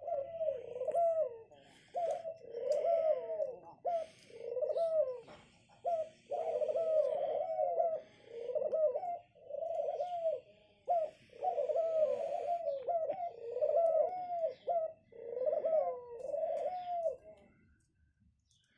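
Caged pet doves cooing: a long run of rolling, dipping coos, one after another with short gaps, until shortly before the end.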